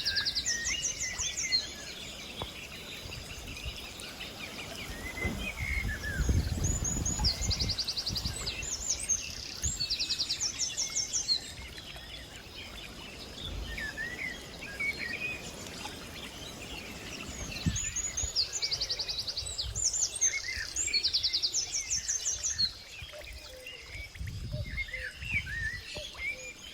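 Several wild birds singing. One repeats a short, high, rapid trill every few seconds, while others give scattered chirps. A low rumble, likely wind on the microphone, comes and goes, strongest a few seconds in and again near the end.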